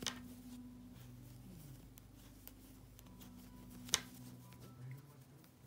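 3.5 mm metal knitting needles clicking against each other as garter stitches are knitted: one sharp click at the start and a louder one about four seconds in.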